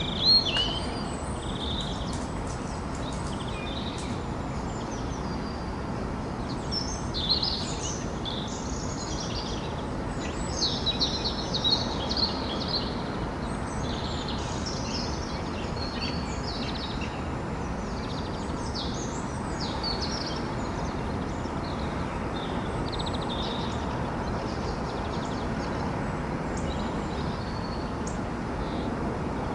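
Morning birds singing and calling in a string of short chirps and trills, with the busiest stretch about a third of the way in. A steady low city hum runs underneath.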